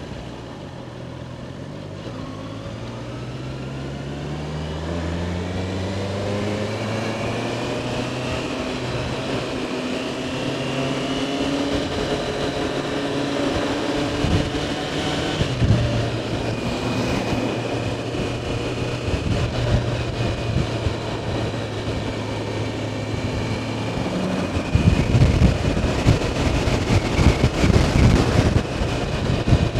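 Honda CBR650R's inline-four engine pulling away, its note rising steadily over about twelve seconds and then holding at a cruising pitch. For the last few seconds, wind buffets the microphone.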